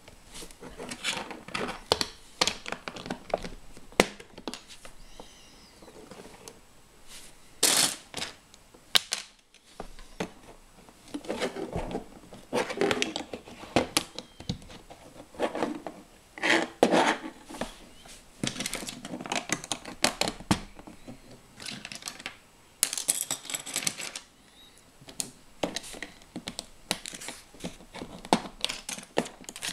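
Plastic LEGO bricks being handled and pressed onto a plate: irregular clicks and small clattering taps throughout.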